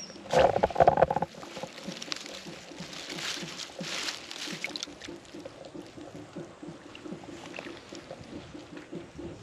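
Water splashing loudly for about a second near the start, then softer splashing and sloshing.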